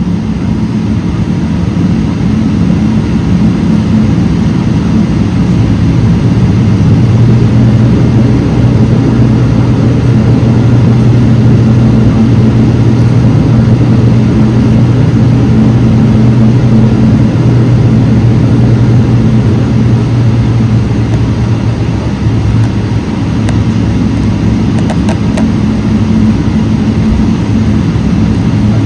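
Boeing 777-300ER's General Electric GE90-115B turbofans at taxi power, heard from inside the cabin as a steady low drone with a hum. It grows a little louder about seven seconds in and eases back slightly near the end.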